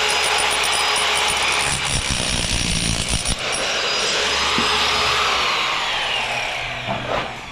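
A power tool running steadily, then a falling whine near the end as it slows down.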